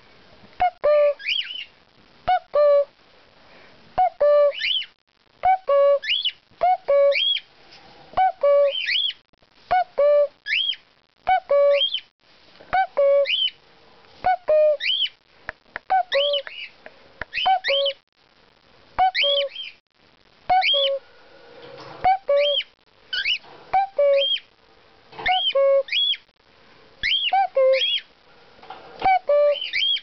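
A person repeatedly imitating the common cuckoo's two-note "cuc-koo" call, a pair of low notes every one and a half to two seconds, with pet cockatiels answering in high, rising chirps and whistles among the calls.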